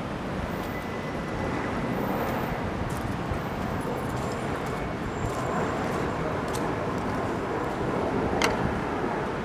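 Steady outdoor city ambience of traffic rumble and wind, with a single sharp click about eight and a half seconds in.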